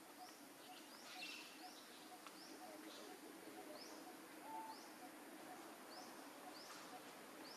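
Faint outdoor ambience with a bird repeating a short, high, rising chirp about once a second.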